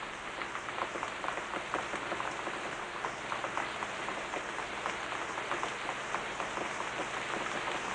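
Steady rain-like patter of many small taps.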